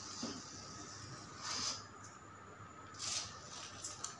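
Small electric drive motors of a homemade RC crawler running with a faint steady whine under load as it climbs a step. Two brief louder hissy bursts come about a second and a half and three seconds in.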